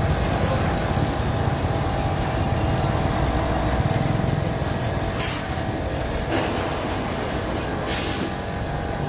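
Street traffic noise: a steady low rumble of passing and idling vehicle engines, with three short hisses about five, six and a half, and eight seconds in.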